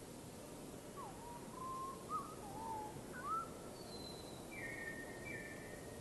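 A songbird singing: a loose phrase of short whistled notes that slide up and down, then a thin high note and two flat, higher notes near the end, over a steady background hiss.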